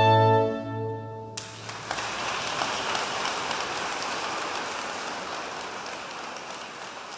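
Clarinet ensemble holding its final chord, which ends about a second in, followed by audience applause that starts suddenly and slowly fades.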